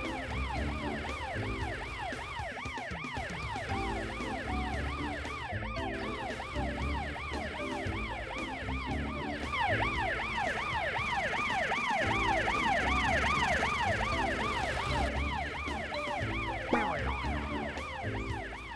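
Cartoon fire truck siren sound effect in a fast yelp, its pitch rising and falling several times a second, over background music with a repeating bass pattern.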